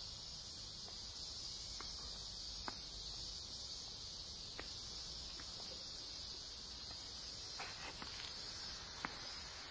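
Faint, steady high-pitched hiss of outdoor ambience, with a few faint taps scattered through.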